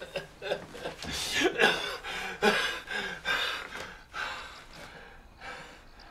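A man gasping and breathing hard in ragged, rasping breaths, growing quieter after about four seconds.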